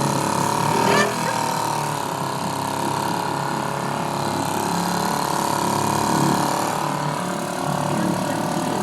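Single-cylinder two-stroke engine of a 1973 British Seagull Forty Plus outboard, running steadily under way to push the boat through lake weed. A brief sharper sound cuts in about a second in.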